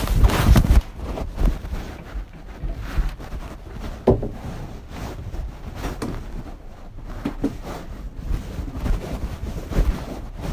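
Rumbling, rustling and knocking of movement close to a mosque's microphone, with a loud burst of noise at the start and a sharp knock about four seconds in: the congregation getting up and forming rows for prayer at the end of the sermon.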